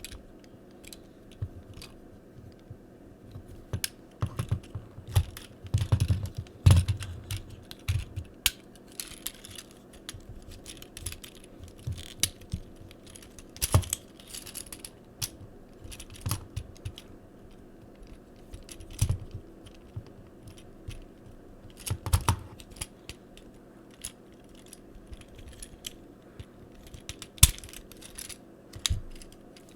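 Hard plastic parts of a Transformers action figure clicking and clacking irregularly as the figure is handled and its arms are worked into position.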